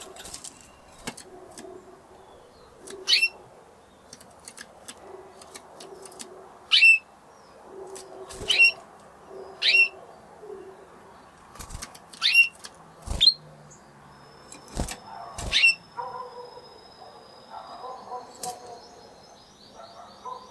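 Spanish Timbrado canary giving short, sharp calls, each a quick downward sweep, about seven of them one to two seconds apart. A few sharp knocks fall between the calls.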